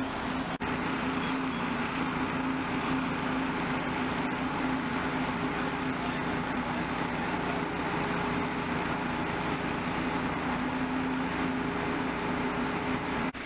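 Vehicle engine running steadily: a constant droning hum over a steady rush of noise, briefly cut off about half a second in and again near the end.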